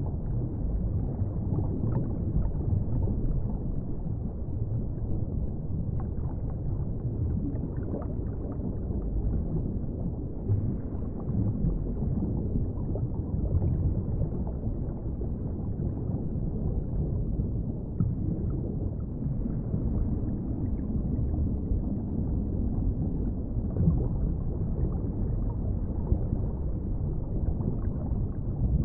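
Deep underwater ambience: a steady, muffled low rumble of water with nothing above the low and middle range, dotted with a few faint ticks.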